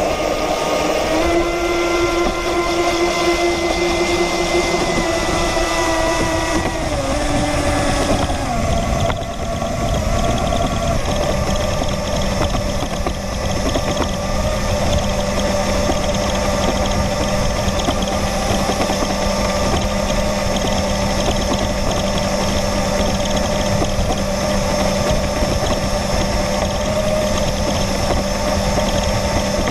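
Radio-controlled boat's motor heard from on board, running steadily over a constant rushing noise. Its whine shifts in pitch and drops about eight seconds in, then holds one steady note.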